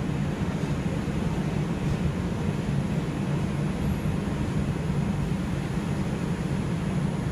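Steady low rumble inside an R142 subway car running at speed between stations: wheels on rails and running gear, heard from inside the car.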